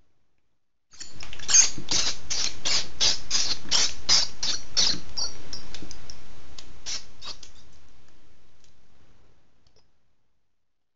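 Mouse squeaking in a rapid, even series, about three high-pitched squeaks a second, starting suddenly about a second in and fading away over the last few seconds.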